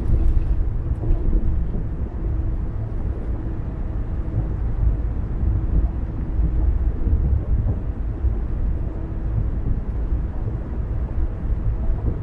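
Car driving along a road: a steady low rumble of tyres and engine with a faint steady hum above it.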